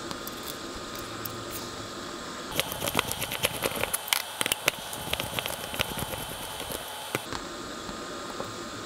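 Small clicks and light rustling as a strip of new plastic-cased lateral MOSFET power transistors is handled, fingers gripping and pressing the packages and their legs. The clicks come in a quick, uneven run from about two and a half seconds in to about seven seconds, over a faint steady hiss.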